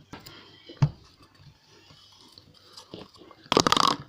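Close-up mouth sounds of someone chewing and eating slime: a few scattered wet clicks, then a dense crackly burst of clicks near the end.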